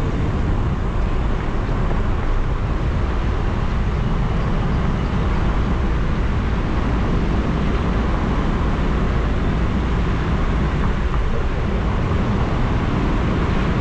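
A car driving along a narrow paved road: a steady low rumble of engine and tyre noise.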